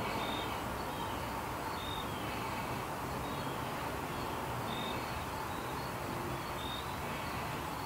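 Steady outdoor background noise with short high-pitched chirps recurring every second or two.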